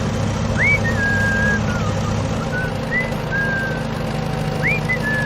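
Whistling in short notes, several sliding quickly upward and then held, over a steady low engine hum.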